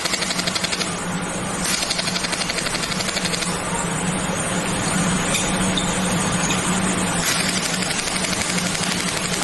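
QCW fiber laser welder firing rapid pulses while welding filler wire, a fast even ticking over a steady low hum. The ticking thins out briefly about a second in and again for a few seconds in the middle.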